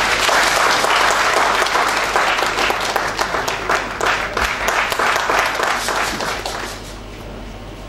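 Audience applauding, a dense clapping that dies away in the last second or so.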